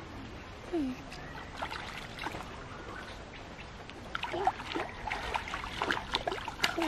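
Shallow stream water trickling, with small splashes and sloshes as a child's stick and bare feet stir the water, busier from about four seconds in. A short falling tone sounds about a second in.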